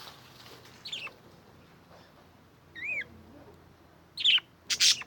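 Budgerigars calling: a few short, arched chirps, then two loud calls near the end, the second a harsh screech.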